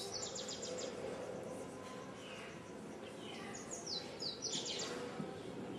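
A small bird chirping over steady background noise: a quick run of high, falling notes near the start, a couple of fainter falling calls in the middle, and the same quick run again about four seconds in.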